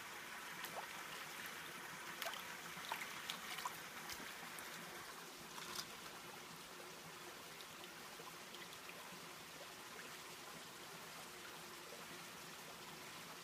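Water sloshing and trickling as a green plastic gold pan is swirled and dipped in a shallow creek pool to wash down the concentrate. There are small splashes and ticks in the first half, then a steadier faint trickle.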